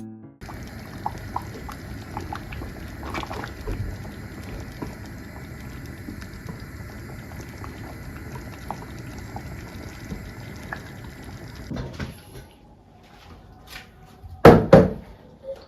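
Water running steadily, with small clinks and taps over it, cut off abruptly about twelve seconds in; then quieter handling and two loud knocks in quick succession near the end.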